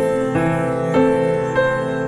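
Gentle background piano music, a melody of notes about every half second over sustained bass notes.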